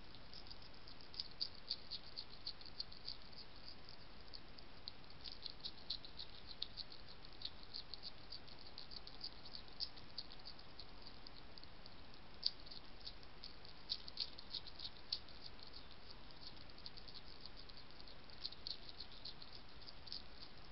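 European hedgehog chewing food: irregular runs of small, crisp crunching clicks, a few sharper than the rest, over a steady faint hiss.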